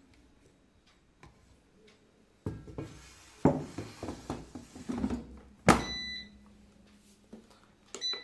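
Cake tin and basket going into an air fryer: scraping and knocks, then a loud clunk as the basket shuts, followed by short electronic beeps from the control panel and a low hum for a second or so. Another beep near the end as the setting is keyed in.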